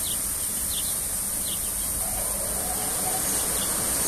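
Automatic rollover car wash gantry running with its brushes spinning: a steady hiss over a low rumble, with a faint high chirp repeating about every three quarters of a second.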